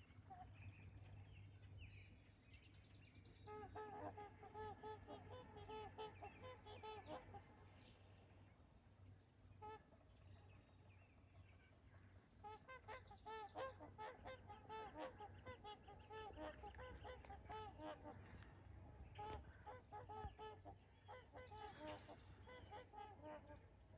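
Trumpeter swans calling: faint bouts of overlapping honking calls from several birds, coming in three flurries.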